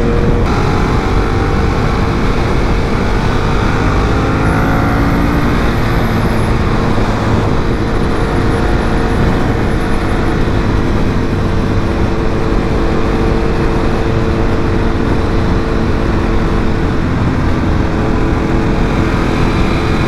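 Ducati 1198's V-twin engine running while the motorcycle is ridden, its note shifting a little in the first few seconds and then holding steady, over a constant rush of wind noise.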